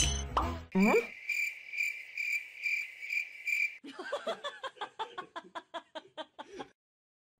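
Cricket chirping, a high pulsing chirp about two to three times a second for about three seconds, likely added as an 'awkward silence' gag effect. It is followed by a quick run of chattering, ticking sounds that stops abruptly.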